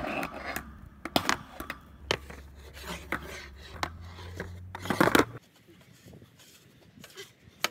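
Skateboard and skater knocking and scraping against a metal mesh fence and paving in a fall, a string of sharp clacks with the loudest clatter about five seconds in. After that only a few faint knocks.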